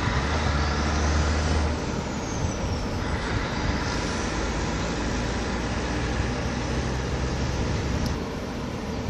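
Steady rumble of port machinery and heavy truck engines, with a low engine drone that swells in the first two seconds and again later, and a faint falling whine about two seconds in.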